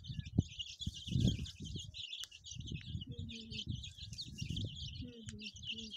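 A brood of chicks peeping constantly, many short high chirps overlapping without a break, over low rustling and knocking noise.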